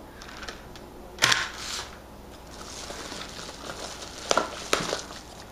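Handling noise from a padded paper mailer and packaging: soft crinkling and rustling as hands dig into the envelope, broken by a few sharp taps or clicks. The loudest tap comes about a second in, and two more come near the end.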